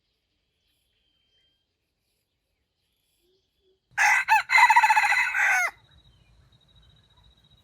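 A rooster crows once, about four seconds in. The crow is loud, about two seconds long, with a brief break near its start.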